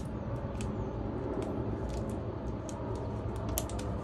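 Steady low background rumble with a few faint, sharp ticks.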